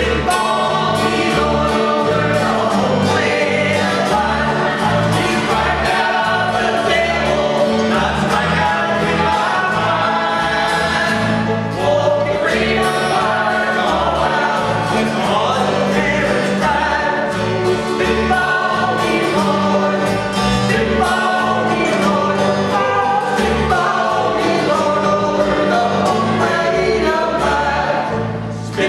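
A gospel quartet number sung live in close harmony by several voices over a bass line that steps from note to note.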